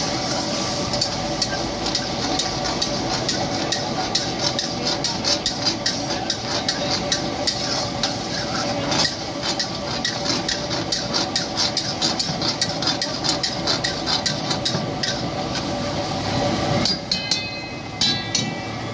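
Metal spatula stirring and scraping in a karahi wok over a sizzling fire, striking the pan in quick repeated clanks about three to four times a second. Near the end, a few ringing metallic clinks.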